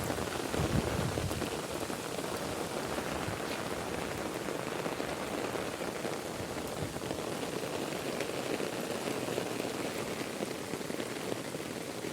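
Heavy rain falling steadily in a dense, even hiss, with a brief low rumble in the first second.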